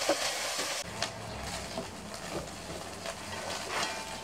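Chopped pork belly sizzling in oil in an electric skillet, a steady hiss, with a few light scrapes and taps of a metal spatula against the pan.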